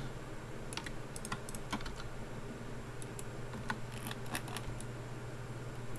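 Computer keyboard keys being pressed in irregular, scattered clicks, over a steady low electrical hum.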